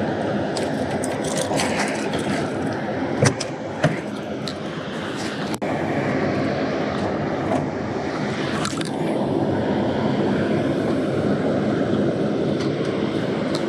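Steady roar of water pouring through a dam's spillway gates, with two sharp knocks about three and four seconds in.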